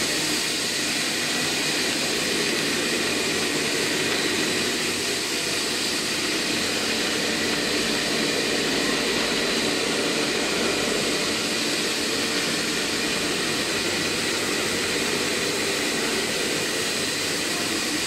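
A PET plastic sheet extrusion line running: a steady mechanical hum and hiss with a few faint, steady whines in it.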